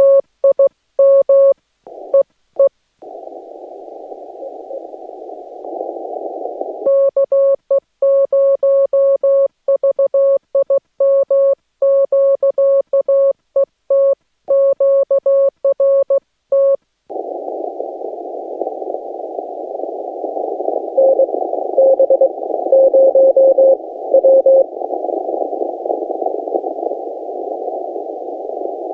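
Morse code keyed on a Yaesu FT-891 transceiver, heard as its clean on-off sidetone. Between the sent passages comes the steady hiss of the receiver listening for replies. About three-quarters of the way through, a keyed reply comes through the hiss.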